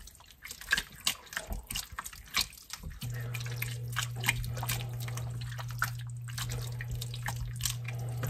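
Wooden spatula stirring a thick, wet chunky chili in a metal pot: a string of short wet clicks and slaps. About three seconds in, a steady low hum starts and carries on under the stirring.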